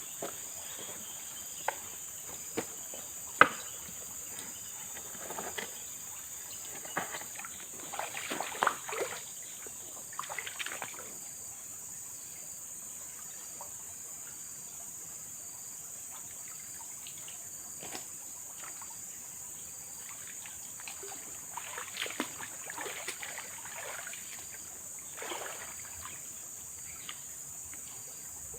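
Steady high-pitched drone of forest insects, with scattered clicks, knocks and splashes of water coming and going. A sharp knock about three seconds in is the loudest.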